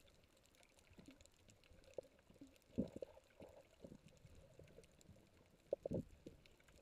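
Faint underwater sounds heard through the water: sloshing water movement with a few dull, muffled knocks, the loudest about three seconds in and again near the end.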